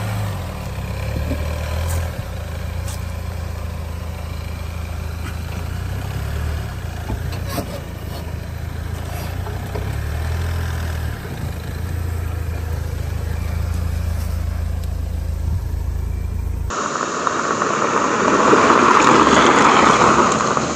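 Ford Bronco Sport's engine running at low revs as the SUV crawls slowly over rocks, a steady low hum. Near the end it cuts suddenly to a louder, even rushing of tyres on a dirt trail and wind as it drives along.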